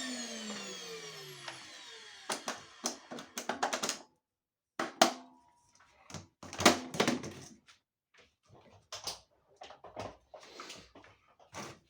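A small electric motor winding down to a stop, its pitch falling steadily over the first two seconds. It is followed by irregular clicks, knocks and clatter of hard parts being handled.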